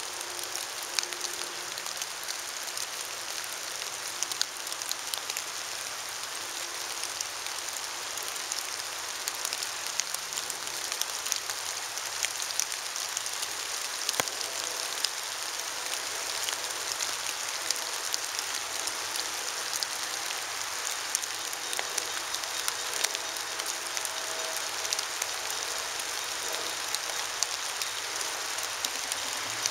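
Steady rain and drizzle hissing, with scattered drops ticking close by. A faint low hum comes and goes underneath.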